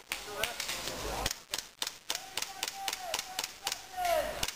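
Airsoft guns firing: a rapid, irregular string of sharp pops, with voices calling out in the background.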